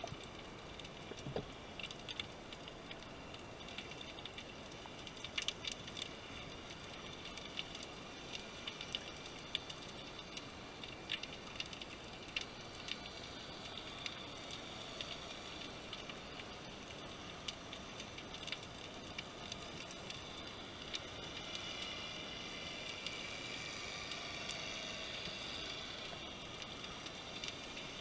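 Underwater ambient noise picked up by a camera in its waterproof housing: a faint steady hiss with scattered short clicks and crackles, a little louder over the last few seconds.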